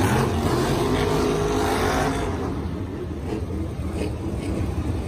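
Monster truck's supercharged V8 running hard as the truck drives across the dirt, then dropping to a lower, rougher rumble about two seconds in.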